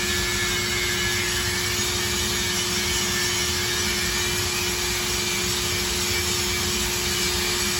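Power grinder grinding a metal plate: a steady, even grinding hiss with a constant motor hum underneath.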